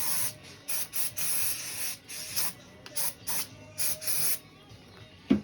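Short bursts of pressurised spray hissing, about nine in a row and some longer than others, as the backhoe's hydraulic cylinder parts are blasted clean. A single sharp knock comes near the end.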